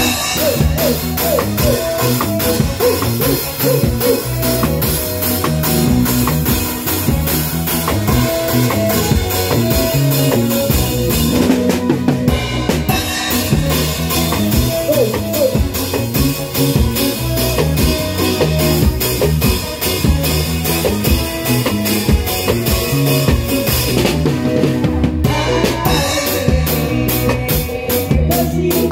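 A ska band playing live, with a drum kit (kick, snare and cymbals) up front over electric guitars and bass, heard from right beside the drums.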